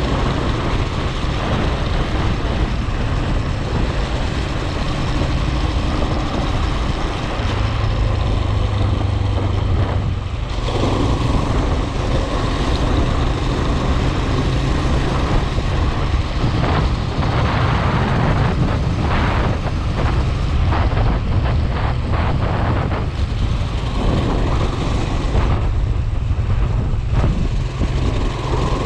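Steady engine and road noise of a moving vehicle, a continuous low rumble whose character shifts a few times.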